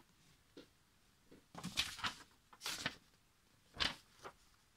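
A few short, quiet rustles and light knocks from hands handling things on a tabletop.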